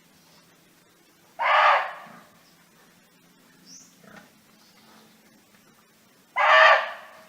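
Barking deer (muntjac) giving its loud single bark twice, about five seconds apart, each call starting abruptly and fading quickly.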